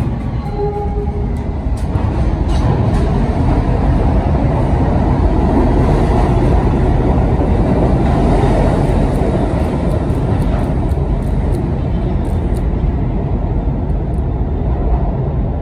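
Budd R32 subway train pulling out of an underground station and running past: a loud, steady rumble and rattle of the cars on the track that builds over the first couple of seconds and eases slightly in the last few.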